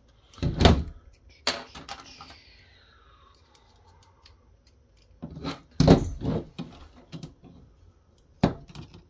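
Knocks and clatter of a firewall's circuit board and tools being handled on a hard tabletop: a sharp knock, then a short scraping slide falling in pitch, then a cluster of louder knocks about halfway through as the board is set down, and one more knock near the end.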